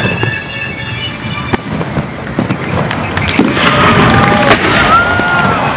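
Fireworks display: dense crackling and popping of bursting shells with sharp bangs, loudest in the second half. Music carries faintly underneath at first, and from about halfway drawn-out high tones rise and fall over the crackle.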